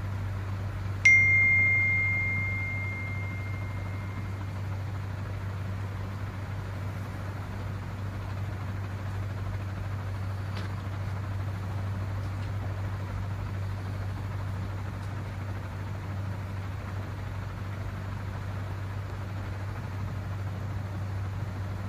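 iPhone notification chime for an incoming WhatsApp message: one sharp ding about a second in, a single clear high tone that rings out over about three seconds. A steady low hum runs underneath.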